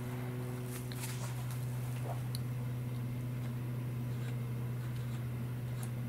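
Steady low hum with a few light clicks and ticks from small parts being handled, about a second in, around two seconds in and near the end.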